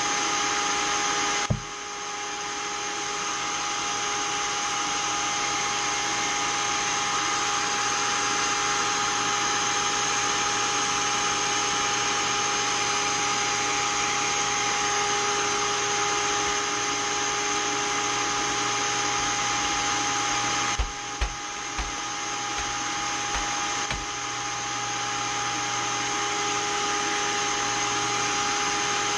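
Seamer Down Now seam-cooling blower running steadily with a constant motor whine, cooling hot-melt seam tape on a carpet seam. The sound dips briefly with a knock about a second and a half in, and again around twenty-one seconds with a few knocks.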